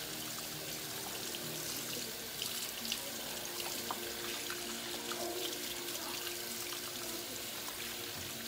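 Pull-down kitchen faucet running steadily into the sink, with hands being washed and scrubbed under the stream.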